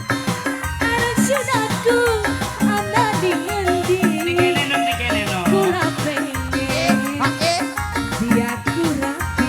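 Live dangdut band music: an instrumental passage with a melody that bends up and down in pitch over a steady drum beat and shaker.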